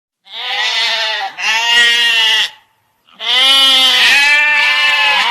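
Goat bleating in long, quavering calls, with a pause of under a second between them.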